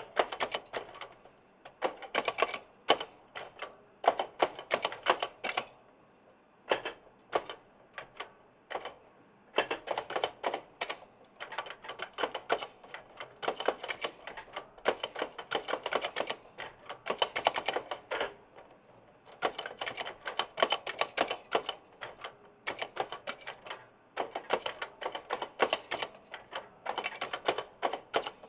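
Typing on an oversized mechanical keyboard with Kailh blue clicky switches: fast, irregular runs of sharp key clicks, broken by short pauses every few seconds.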